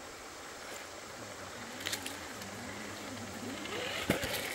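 Steady rush of a shallow stream under the whir of a small RC rock crawler's electric motor. The motor whines up in pitch near the end, and the truck clacks sharply on rock, once about two seconds in and louder just before the end.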